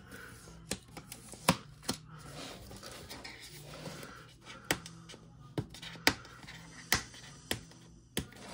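Fingers picking and tapping at a cardboard product box, trying to work its flap open: about nine sharp, irregular clicks of fingernails on card over a soft scraping rustle.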